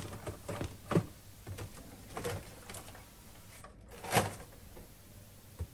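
Handling noises: a series of short knocks and rustles, the loudest about a second in and about four seconds in.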